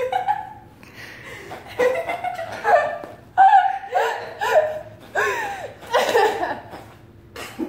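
Human laughter in repeated loud bursts, with a few indistinct words mixed in.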